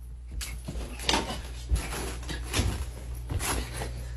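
Scuffling and handling noise: a run of short, irregular rubs and knocks as hands grab and wipe at clothing, over a steady low hum.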